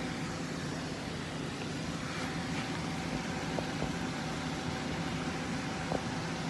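Steady rushing rumble of a lahar from Mount Semeru, a volcanic mudflow of water, sand and rocks, pouring down a rocky riverbed.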